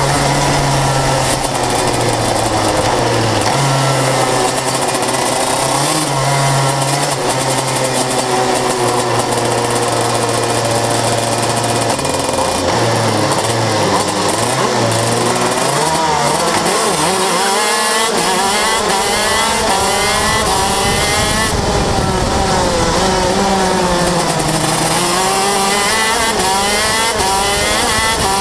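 125 cc KZ shifter kart's two-stroke engine racing, heard from on board: the pitch climbs and drops again and again as it is revved up and shifted through its six-speed gearbox.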